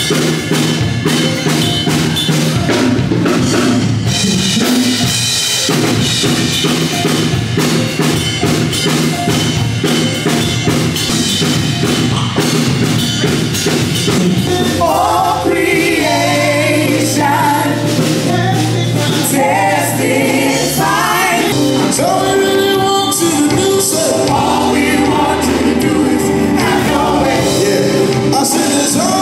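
Gospel band and vocal group at a soundcheck: drum kit and band playing, with several singers coming in together about halfway through.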